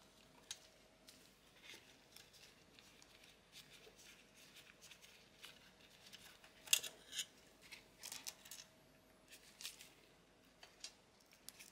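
Faint, scattered clicks and rustles of gloved hands handling the wires and mainboard of a 3D printer, with a brief cluster of sharper clicks about seven seconds in.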